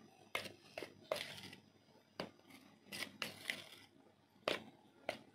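Metal spoon stirring a dry flour mix in a glass bowl: about nine short, irregular scrapes and clinks of the spoon against the glass.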